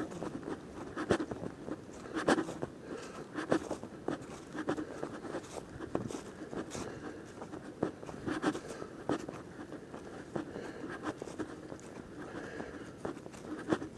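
Footsteps of someone walking along a trail, roughly one step a second.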